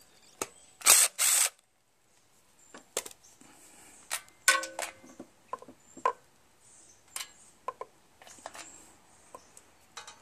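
Two short, loud bursts from a cordless drill/driver backing out bolts on a Briggs & Stratton opposed-twin engine about a second in. Then scattered clicks and metallic clinks as the loose steel bolts are handled and set down on a wooden plank.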